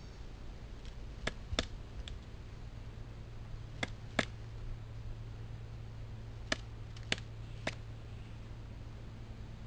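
Pileated woodpecker pecking at a tree trunk: about eight sharp, irregularly spaced taps, some coming in quick pairs, over a low steady hum.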